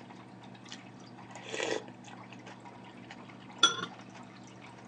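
Eating sounds with a spoon: a brief wet slurp about a second and a half in, then a metal spoon clinking once against a ceramic bowl near the end, ringing briefly. A steady low hum runs underneath.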